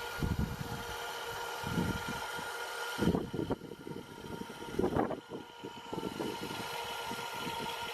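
A steady mechanical hum with several even tones, with irregular low knocks and rattles and two louder bursts about three and five seconds in.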